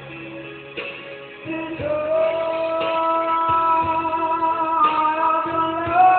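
A man singing a ballad into a karaoke microphone over a videoke backing track. After a quieter first second or so, he holds a long note from about two seconds in, and the pitch steps up near the end.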